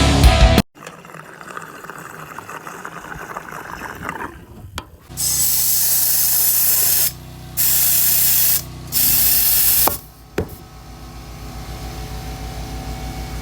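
Air tool running in three bursts of loud hissing, the first about two seconds long and the next two about a second each, with a fast low pulsing under the hiss. A short stretch of music at the very start, and a quieter stretch of faint rattling comes before the bursts.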